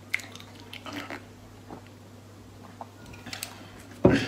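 Close-miked eating mouth sounds: sipping a milky drink and chewing, soft wet clicks. Near the end, one loud, short thump.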